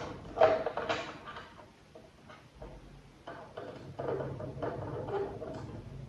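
Scraping and knocking of hard objects being handled, loudest about half a second in, with a steady low hum from about four seconds in.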